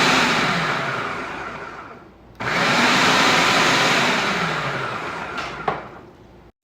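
Edison food processor running in two pulses of about three seconds each, kneading tart dough with cold water added, then a short click as it stops.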